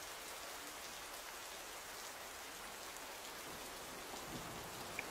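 Faint, steady rain pattering.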